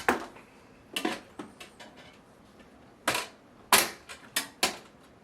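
Hard plastic-and-metal clicks and clacks of computer parts and the case being handled during a PC build: about eight sharp knocks at irregular intervals, the loudest a few seconds in.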